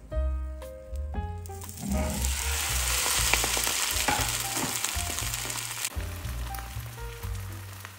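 A patty of minced chicken hearts, grated carrot and egg sizzling in hot oil in a frying pan after being slid in from a plate; the sizzle swells about a second and a half in and dies away around six seconds. Background music with a bass line plays throughout.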